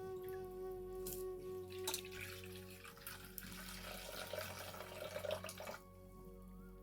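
Water running and splashing for a few seconds, stopping shortly before the end, over a faint steady musical tone.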